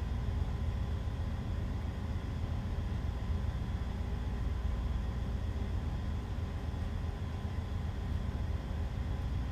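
Steady low machinery rumble with a faint constant hum, unchanging throughout.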